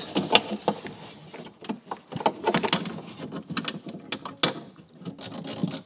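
A small hand tool clicking and knocking against metal inside a Land Rover Freelander's rear door cavity, in an irregular string of sharp clicks, as it works blind at the bolt holding the window glass to the regulator bracket.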